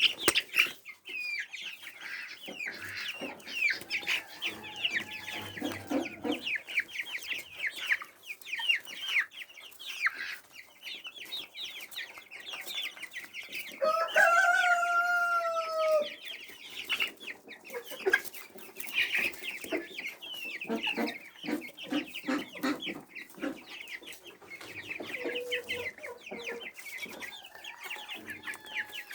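Chickens clucking and chattering with many short, high calls throughout. About halfway through, one chicken crows once, a loud call of about two seconds that falls slightly in pitch.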